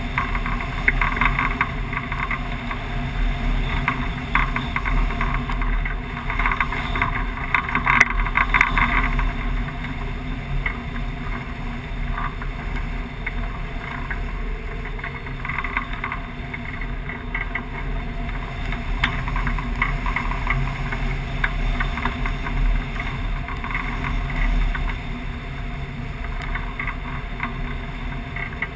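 Wind rushing over a wing-mounted camera on a hang glider in free flight: a steady rush with gusts of buffeting, stronger about a second in and again around six to nine seconds in.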